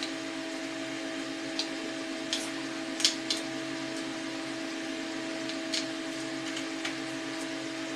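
Light clicks and taps of hand work on electrical outlet parts, about six scattered through, the sharpest about three seconds in, over a steady background hum.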